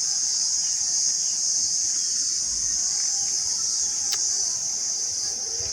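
A steady, high-pitched chorus of insects such as crickets, with one sharp click about four seconds in.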